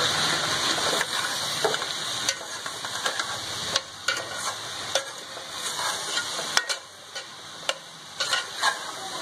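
Chopped okra, onion and tomato sizzling in oil in a metal pot while a slotted steel spatula stirs them, scraping and knocking against the pot's sides. The sizzle eases off about two-thirds of the way through, with a few sharper knocks near the end.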